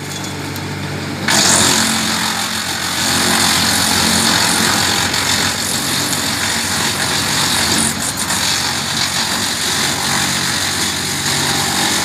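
Tractor-driven Hasatsan DP 700 wood chipper working: the tractor engine runs steadily, and about a second in a loud, dense noise of branches being chipped and chips blown out of the chute sets in and continues.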